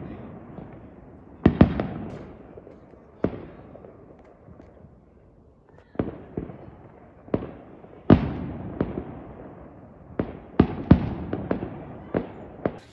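Fireworks exploding: about a dozen sharp bangs at irregular intervals, some in quick pairs, each followed by a trailing echo.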